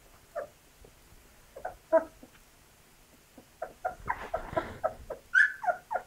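Two-week-old Labrador puppies squeaking and whimpering in short calls. There are a few at first, then a quick run of them from about three and a half seconds in, turning higher and brighter near the end.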